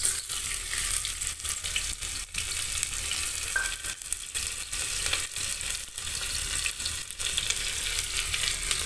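Chopped onion sizzling in hot oil with coriander in an aluminium pressure cooker pan: a steady frying hiss with frequent small crackles and pops.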